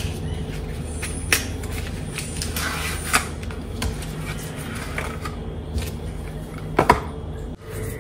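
A cardboard box of processed cheese spread being opened and its wrapped block pulled out: scattered rustles and sharp clicks, with a louder double click near the end. A steady low hum runs underneath.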